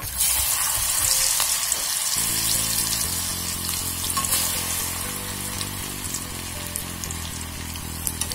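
Banana-flower dhal vadai fritters deep-frying in a wok of hot oil: a steady sizzling and bubbling, with fresh batter balls dropped in from a slotted spoon.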